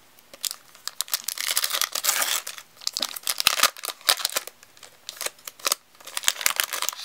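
Foil wrapper of a Pokémon TCG booster pack crinkling and tearing as it is ripped open by hand. A dense run of crackling comes in the first few seconds, then scattered sharp crinkles as the wrapper is peeled back.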